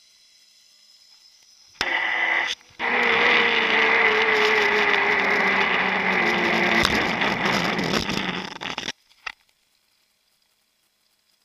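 Zipline trolley running along the cable near the end of the line: a loud rushing noise with a whine that falls in pitch as the rider slows toward the landing, starting abruptly about two seconds in and cutting off suddenly near nine seconds, followed by a single click.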